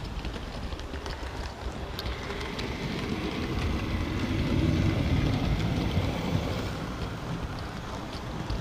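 Model railway train running along the track, heard from a wagon riding behind the locomotive: a steady rolling rumble of wheels and motor with occasional sharp clicks. The rumble grows louder and deeper about halfway through as the train passes under a low shelf, then eases again.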